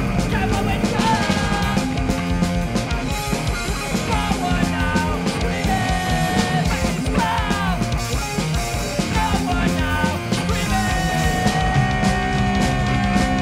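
Punk rock band playing live: electric guitars, drums and a singer's voice over them, loud and continuous.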